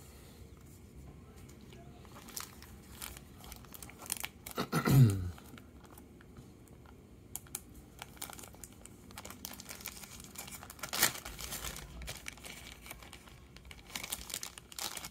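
Clear plastic sticker bag crinkling and rustling as it is handled, with small crackles and ticks throughout. About five seconds in comes a short, loud sound that falls steeply in pitch, and near eleven seconds a sharp click.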